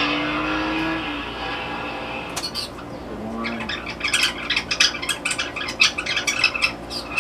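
A cassette recording of birds twittering, played on a Panasonic RX-5110 boombox's tape deck and heard through its speaker. It opens with a steady hiss and a low held tone that fade over the first two seconds. Rapid chirps come in from about four seconds in and keep going.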